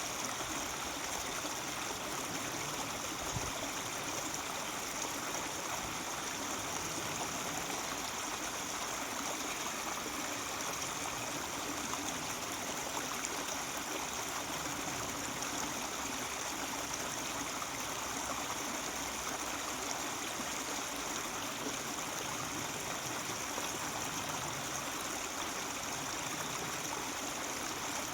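Mountain stream babbling and gurgling over rocks, a steady rush of water.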